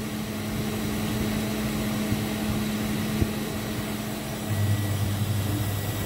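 Steady electrical and mechanical hum from an off-grid solar inverter system powering a washing machine on its rinse cycle. A deeper hum joins about four and a half seconds in, as the machine's draw jumps from about 94 to about 430 watts.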